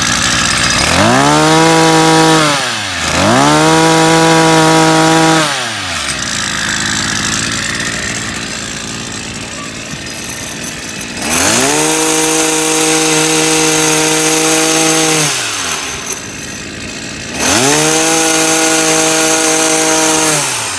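Maruyama 32cc brush cutter engine, just started, revved from idle four times: each time the pitch rises to a high steady whine, holds for one and a half to four seconds, then falls back to idle, with the longest idle in the middle. It runs smoothly, "rất là ngon" (running very nicely).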